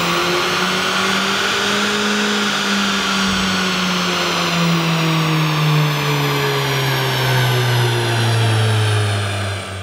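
Seat Ibiza 1.2 TSI's four-cylinder turbo petrol engine under load on a rolling road, heard through a resonated Scorpion cat-back exhaust. The revs climb for the first couple of seconds, then wind slowly down through the rest of the run, and the sound drops away at the very end.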